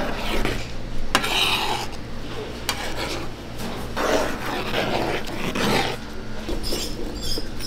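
Metal ladle stirring and scraping through thick tteokbokki sauce in a large pan: several wet swishing scrapes, with one sharp clink of metal just after a second in. A steady low hum runs underneath.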